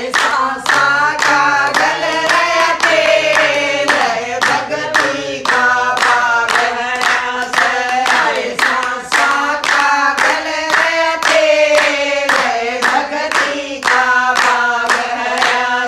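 A group of women singing a Hindi devotional bhajan together, with hand clapping keeping a steady beat throughout.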